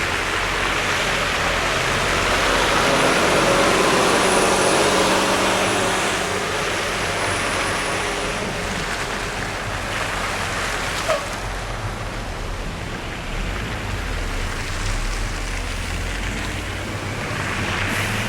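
Traffic passing on a snow-covered road: tyres hissing through slush over low engine hum, with one vehicle passing loudest a few seconds in and another near the end.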